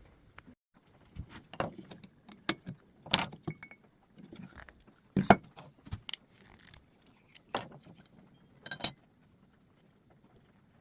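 Metal hand plane and its parts being handled on a bench: about eight irregular sharp metallic clinks and knocks, some ringing briefly.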